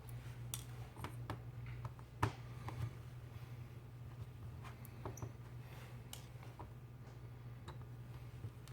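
Faint, scattered small clicks and ticks of a precision screwdriver working the tiny screws out of a smartphone's frame, about ten in all and unevenly spaced, over a steady low hum.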